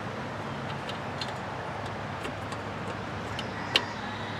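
Light ticks and clicks of a replacement Briggs & Stratton stator being set in place around the engine's crankshaft, with one sharp click near the end, over a steady low hum.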